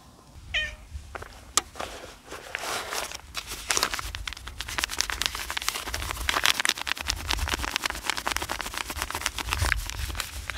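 A cat gives one short meow near the start. Then, from about two and a half seconds in, a dense, continuous crinkling and crackling of a plastic wrapper being handled.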